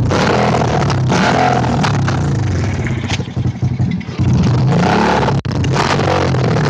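Dirt bike's Honda engine running loud through a straight-pipe exhaust with no muffler packing. About three seconds in it falters unevenly for roughly a second, then picks back up.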